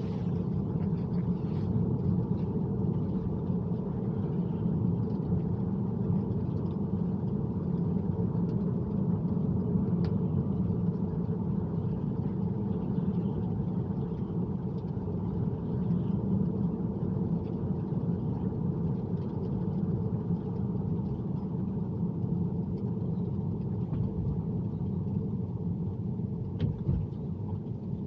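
Steady road noise inside a Tesla's cabin while driving: a low, even rumble from tyres on wet pavement, with no engine sound.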